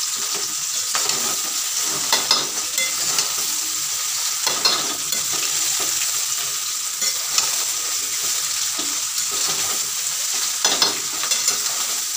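Fried rice sizzling in a steel pan while a spatula stirs and scrapes through it, with scattered light knocks of the spatula against the pan.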